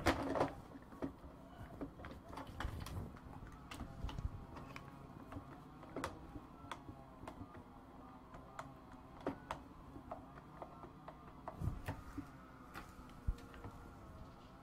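Irregular light clicks and taps of things being handled on a desk, with a louder knock right at the start.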